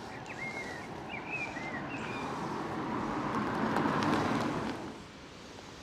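A car driving past, its tyre and engine noise swelling to a peak about four seconds in and then fading away. A few short bird chirps sound in the first two seconds.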